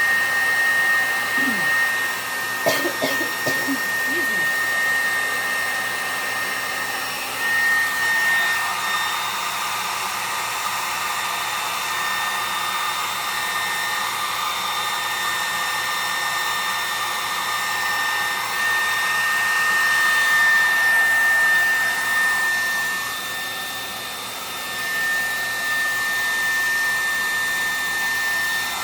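A hair dryer blowing on alcohol ink, running steadily with a loud, high whine over its rushing air. Its loudness swells and dips a few times along the way.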